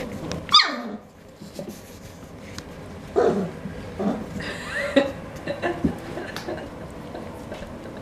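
Four-week-old standard poodle puppies yelping and yipping as they play with toys and each other: a sharp high yelp falling in pitch about half a second in, then a few shorter yips and barks in the middle.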